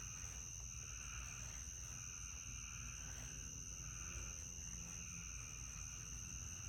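Evening insect chorus: a steady high-pitched drone with softer, wavering lower trills, over a low rumble.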